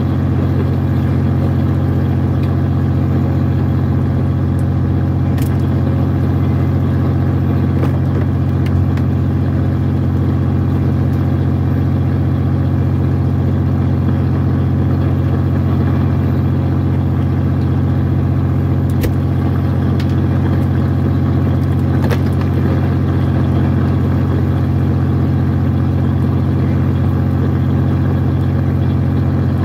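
Steady low drone of the fishing boat's engine running without change, with a few light clicks and knocks over it.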